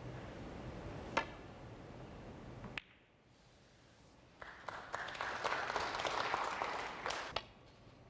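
Snooker cue striking the cue ball with a single sharp click about a second in, and another ball click a little later. Then audience applause, the loudest part, for about three seconds before it stops suddenly.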